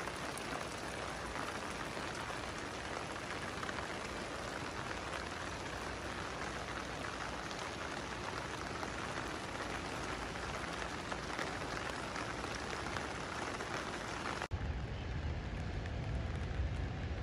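Steady rain falling, an even hiss. About three-quarters of the way in it cuts off abruptly and gives way to a low rumble.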